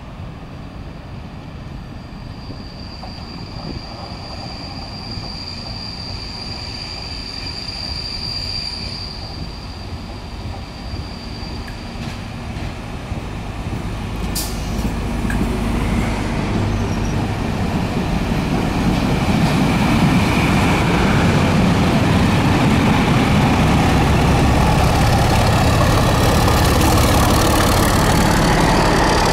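A diesel-hauled test train running past a station platform, its wheels rumbling over the rails and growing steadily louder as the coaches go by. A thin high whine fades out about twelve seconds in. The low running of the Class 31 diesel locomotive at the rear builds as it draws near.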